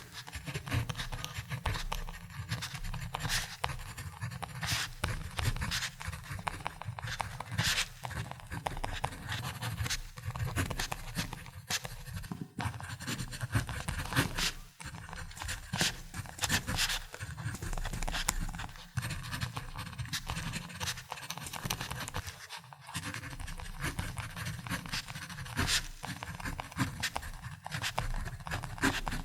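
Ballpoint pen writing on paper: continuous scratching strokes with short quick ticks, broken by a few brief pauses.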